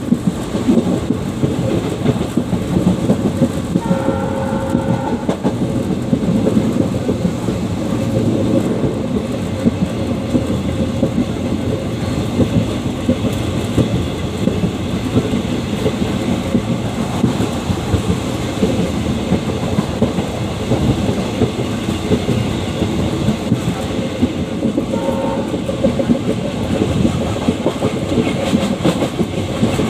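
WDG3A diesel locomotive's ALCO 251 sixteen-cylinder engine chugging steadily, with the coach's wheels clattering over rail joints, heard from inside the coach just behind the locomotive. A short horn sounds about four seconds in.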